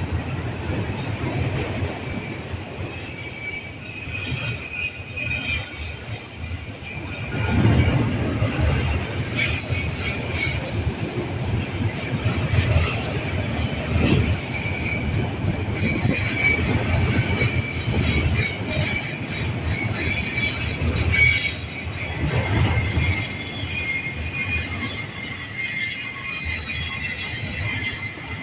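Union Pacific freight train rolling past, its wheels squealing in several steady high-pitched tones over a continuous low rumble of the cars. The rumble swells a few times as cars go by.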